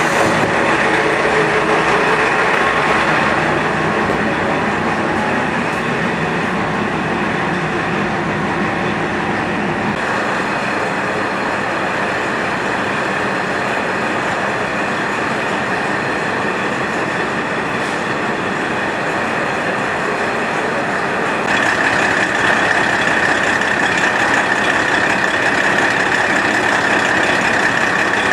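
JNR KiHa 40 series diesel railcar running, its diesel engine and wheels on the rails making a steady drone. About three-quarters of the way through, a steady high tone joins and the sound grows slightly louder.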